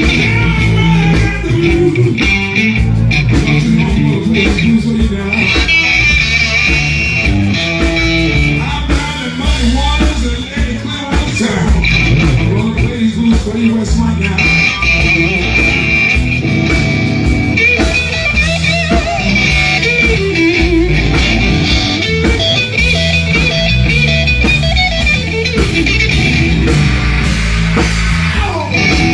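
Live blues band playing an instrumental passage, with electric guitar leading over a strong bass line.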